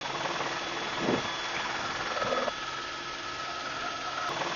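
Steady engine drone heard from inside an aircraft cabin, with a thin whine over the noise and a couple of soft bumps.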